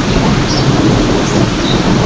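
Heavy, steady rain with a low rumble of thunder underneath.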